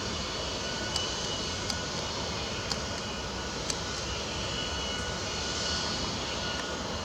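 Steady engine-like drone with faint high steady tones, broken by short sharp clicks about once a second.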